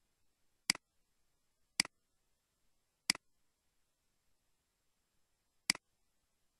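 Four sharp computer mouse-button clicks, unevenly spaced, each a quick press-and-release click.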